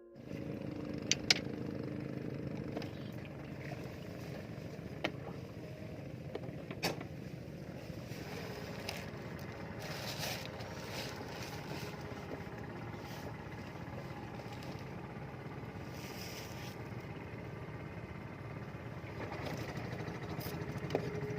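Small boat motor running steadily, with a few sharp knocks about a second in and again around five and seven seconds.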